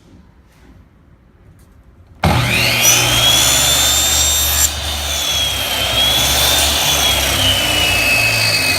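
A woodworking power machine switches on suddenly about two seconds in and runs loud, cutting a groove in wood for a box's bottom panel; its high whine climbs a little and then sags in pitch as the wood is fed through.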